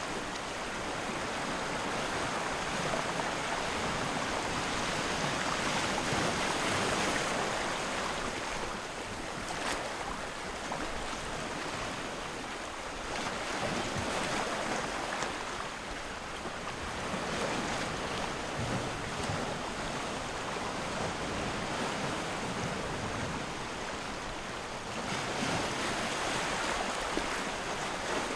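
A steady rushing noise, swelling and easing every few seconds, with no distinct events or tones.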